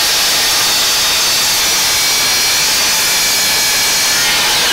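DeWalt DWS779 12-inch sliding compound miter saw, 15-amp motor, running at full speed with a loud, steady high whine. Near the end its pitch starts to fall as the blade begins to spin down.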